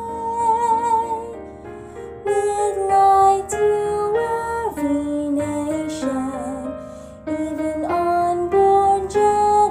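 Slow, gentle music: a single melody moving note by note, with a little vibrato near the start, over soft sustained accompaniment.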